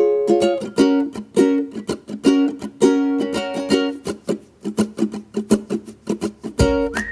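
Background music: a quick tune of picked notes on a plucked string instrument.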